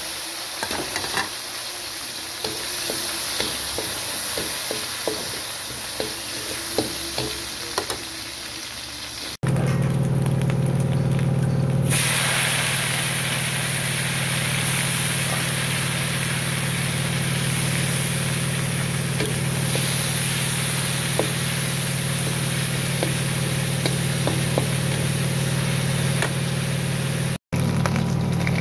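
Sliced Chinese sausage and garlic frying in oil in a wok, sizzling, with the short clicks and scrapes of a spatula stirring. About nine seconds in, a steady low hum joins the sizzle and runs on under it.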